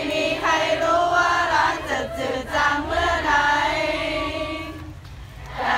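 A large crowd of fans singing together in unison, with long held notes. The singing dips about five seconds in and picks up again near the end.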